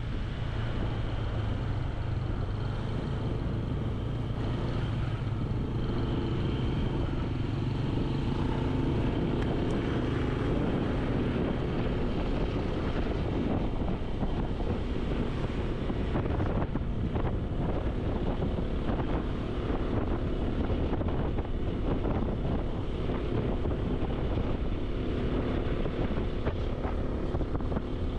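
Vehicle engine running steadily while travelling along a road, with road noise and wind buffeting the microphone.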